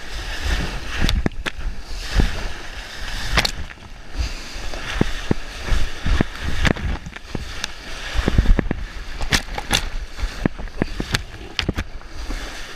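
Whitewater of a river standing wave rushing and spraying right at a board-mounted action camera, with many sharp splashes and slaps of water scattered throughout.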